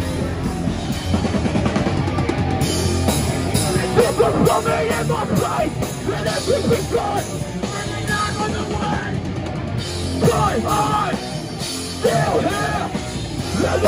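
Live hardcore punk band playing: distorted guitars and drum kit, with shouted vocals coming in about four seconds in.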